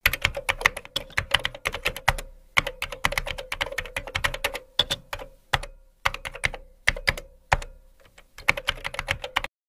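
Computer keyboard typing: rapid, irregular runs of keystroke clicks broken by short pauses, stopping shortly before the end.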